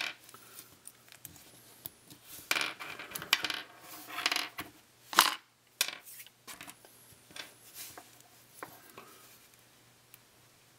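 Plastic wheelsets being pulled out of an HO scale boxcar's plastic trucks: small clicks and rattles, busiest in the middle, with one sharp click about five seconds in.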